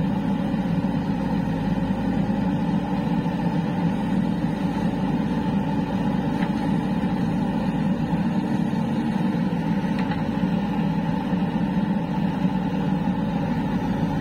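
Diesel engine of a JCB 3DX backhoe loader running steadily at a constant speed.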